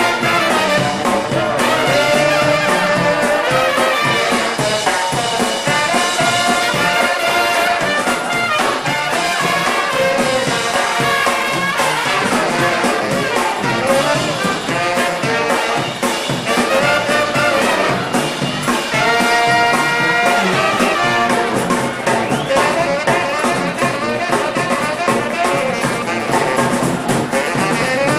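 Live band playing music through stage speakers, loud and continuous.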